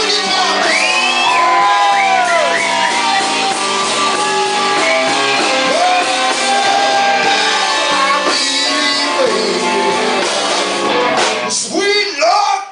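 Live blues band playing a slow blues, with the lead electric guitar bending notes up and back down over bass and drums. Near the end the band drops out for short breaks between hits.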